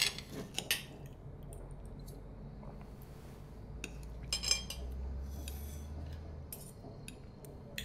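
Cutlery and dishes clinking lightly at a meal: a handful of scattered taps and clinks, one brighter ringing clink about four and a half seconds in, over a low steady hum.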